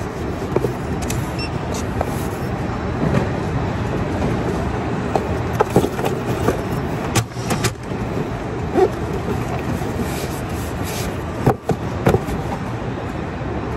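Cardboard shipping box being handled on a packing table, with a few scattered knocks and scrapes, over a steady warehouse hum.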